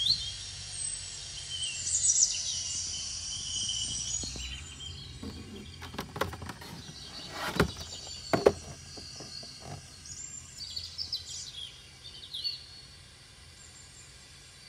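Birds chirping in the background over a low steady hum, with a cluster of knocks and clicks from the toy box being handled around the middle, the loudest two close together.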